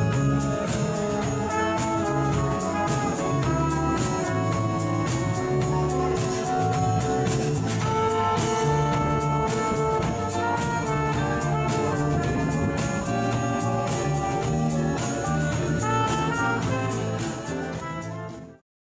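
Upbeat jazz-style band music led by brass over a steady beat, fading out to silence near the end.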